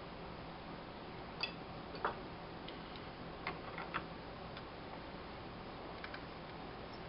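Scattered light clicks and taps, about a dozen at uneven intervals, as a brass fitting and a metal hand tool are handled against the end of a wooden cane shaft.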